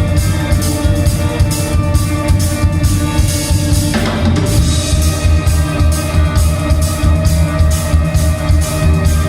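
A band playing music with a steady drum-kit beat, bass drum and snare driving it; the sound of the instruments shifts about four seconds in.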